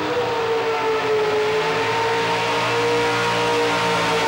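Modified 4x4 pulling truck's engine, a Chevrolet pickup, held at steady high revs at the starting line, its pitch dipping slightly about a second in and then holding level.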